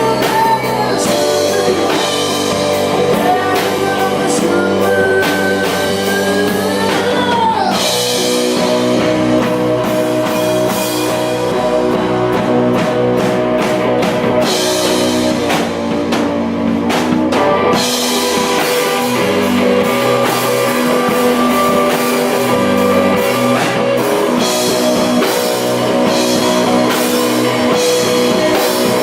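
A rock band playing live: electric guitar, bass and drum kit with cymbals. A lead line bends in pitch over the first several seconds, then the band settles into steady, sustained chords.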